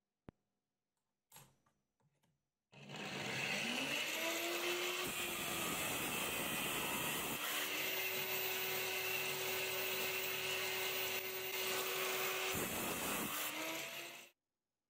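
Electric angle grinder in a bench stand spinning up and running steadily as a steel nail is ground on its abrasive disc. It starts about three seconds in and stops about a second before the end.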